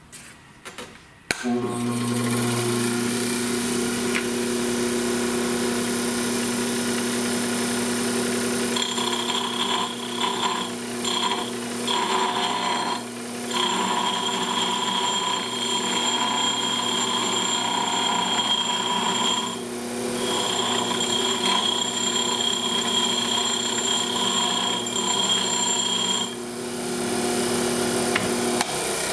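Bench grinder switched on about a second in and running with a steady hum; from about nine seconds the wheel grinds away the bent threads on the end of a steel differential pinion shaft, adding a high whine that breaks off briefly a few times as the part is lifted away. The grinding stops a few seconds before the end, leaving the grinder spinning.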